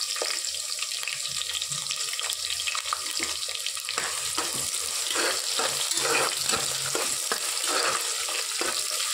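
Sliced onions and whole spices sizzling in hot oil in an aluminium pressure cooker, with a metal spoon stirring them through the oil from about four seconds in.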